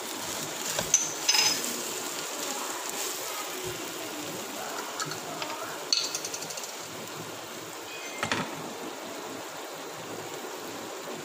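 Beef, onions and chillies sizzling gently in a frying pan while a silicone spatula stirs them, with a few short scrapes and clinks against the pan about a second in, around the middle and again later.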